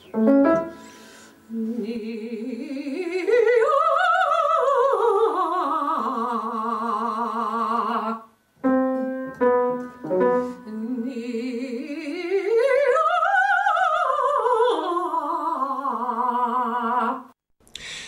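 Operatic singing voice with strong vibrato: two long phrases, each gliding up in pitch and back down. Each phrase is preceded by a few short piano notes.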